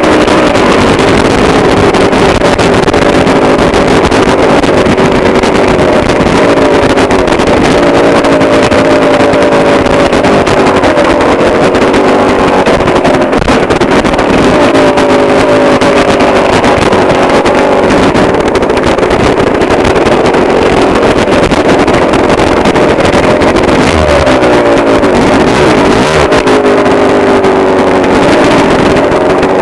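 Dirt bike engine running under a rider on a steep trail, heard from an onboard camera, with wind noise on the microphone; the engine note keeps rising and falling as the throttle changes. Near the end the revs drop away and then climb again. The recording is loud and overdriven throughout.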